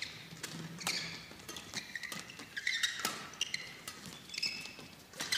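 Badminton rally: sharp racket strikes on the shuttlecock about a second apart, with short high squeaks of players' shoes on the court mat between them.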